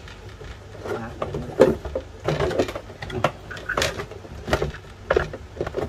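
Irregular knocks and clicks from the hard plastic body shell of a 1:8 scale RC rally car being handled, roughly one a second.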